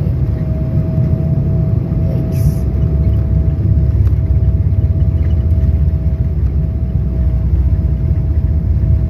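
Airliner cabin noise as the plane rolls along the ground after landing: a loud, steady low rumble from the engines and wheels, with a steady whine above it. A brief hiss sounds about two and a half seconds in.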